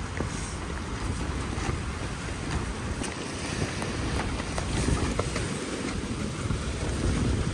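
Storm wind gusting hard against a hammock shelter, with rain spattering on the fabric and mesh in scattered taps and a heavy wind rumble on the microphone.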